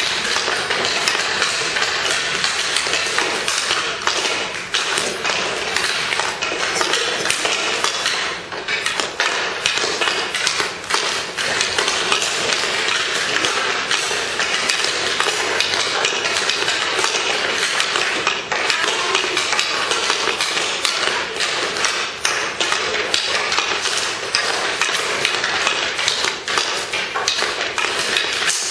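Ice hockey practice on a rink: skate blades scraping the ice in a steady hiss, with a constant clatter of sharp knocks from sticks and pucks striking the ice and boards.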